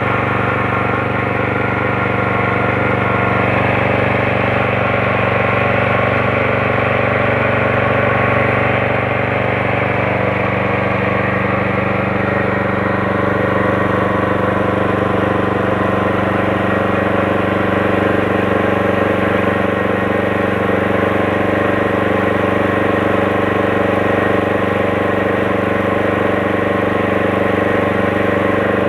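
Small stationary engine running steadily at a constant speed, driving a water pump rigged up as a grass sprayer.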